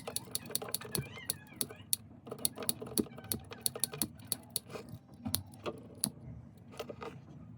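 Rapid small clicks and taps of parts and tools being handled, several a second, over a low steady hum.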